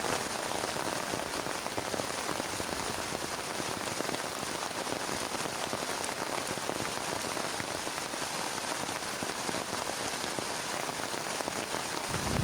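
Heavy rain falling steadily on a plastic tarp, a dense stream of individual drop hits. A low rumble starts right at the end.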